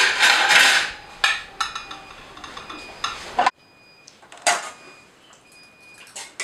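Metal serving spoon scraping and clinking against stainless-steel pots and plates as food is dished out. A loud scrape comes first, then a few sharp separate clinks.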